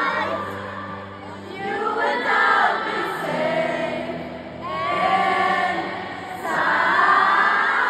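Live stadium concert heard from the crowd: a woman's sung melody over acoustic guitar, with a mass of audience voices singing along in phrases of a second or two.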